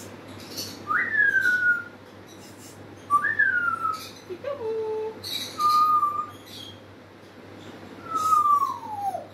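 African grey parrot whistling a series of about five separate whistles. Some swoop up and then slide down, one drops in two steps to a lower note, and the last, near the end, is a long downward slide.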